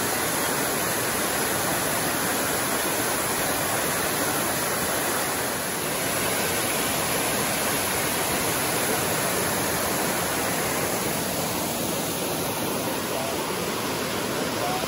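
Waterfall rushing steadily, a continuous loud hiss of falling water splashing onto rock and into the pool below.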